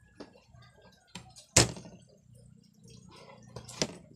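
Kitchen knife knocking sharply on garlic cloves against a plastic table, crushing them. There are two loud knocks, about a second and a half in and near the end, with lighter taps and rustling between.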